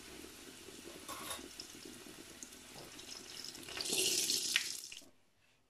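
A kefir-dough flatbread frying in hot oil in a cast-iron pan, a steady sizzle. About four seconds in it swells into a louder hiss as a fork prods the bread, then stops abruptly.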